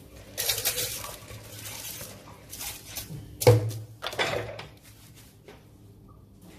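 Wet soaked rice poured from a plastic bowl into a plastic blender jar, a rushing, scraping pour lasting a second or two. This is followed a little past halfway by a sharp knock of plastic on plastic, and a smaller one just after.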